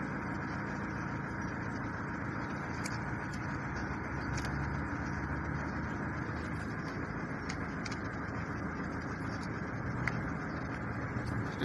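Steady engine rumble with a low hum, and a few faint light clicks over it.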